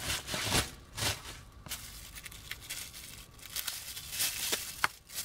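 Clear plastic packing wrap crinkling and its tape tearing as a small wrapped part is unwrapped by hand, in irregular rustles and crackles with a few sharp ticks.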